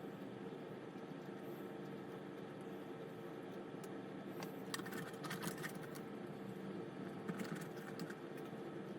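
Light clicks and rustles of small model parts being handled and fitted, over a steady low hum; the clicks cluster about halfway through and again near the end.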